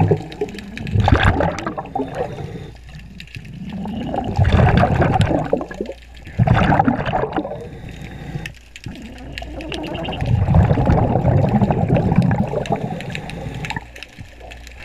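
A scuba diver's regulator breathing underwater: four long, bubbling rushes of exhaled air a few seconds apart, with quieter inhalations in between.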